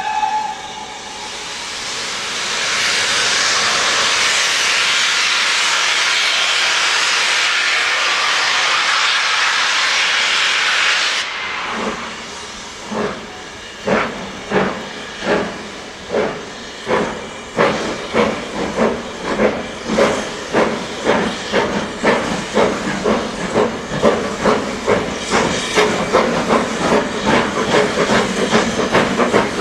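Two steam locomotives, BR Standard Class 4 4-6-0 No. 75078 and LMS Black Five 4-6-0 No. 45407, pulling a train away uphill. A steady loud hiss of steam cuts off after about eleven seconds, then exhaust beats start slowly and quicken into a fast chuff as the train gathers speed.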